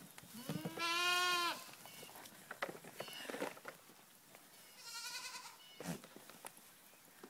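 Three-week-old miniature goat kids bleating: one long, loud bleat about a second in, then two shorter, fainter bleats. A single knock comes near the end.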